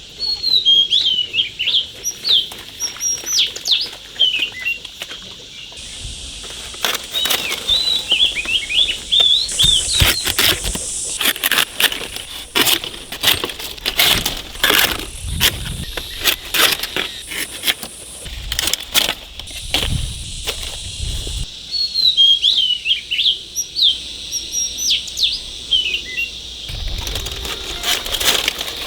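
Small birds chirping in quick, rising and falling notes, with a run of sharp clicks and knocks through the middle stretch.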